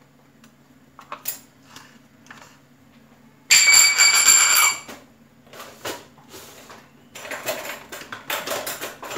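Metal kitchenware clinking and clattering out of sight: scattered light clicks, then about three and a half seconds in one loud, ringing metallic clatter lasting just over a second, followed by more clinking and scraping near the end, over a faint steady low hum.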